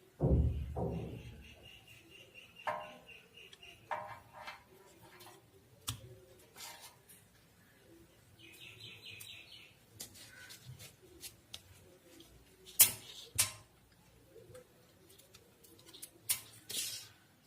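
Sharp clicks and knocks of small electronic parts and connectors being handled and plugged in during amplifier assembly, opening with a dull thump. Two runs of rapid high chirping, like a small bird, sound in the background, near the start and about halfway through.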